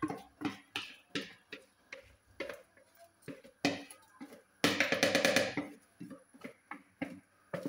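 Wooden spoon knocking and scraping against a plastic bowl as the last rice grains are tipped into the pot: a string of short sharp taps, with a quick flurry of rapid taps about five seconds in.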